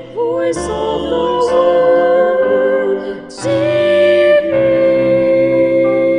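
Station jingle song with singers holding long notes with vibrato over instrumental backing, marked by a few sharp cymbal-like hits. The last held note begins about three and a half seconds in and carries on to the end.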